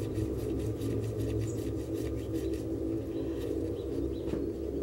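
A pigeon cooing over a low steady hum, with faint quick clicks in the first couple of seconds as a small screw is turned out with a screwdriver.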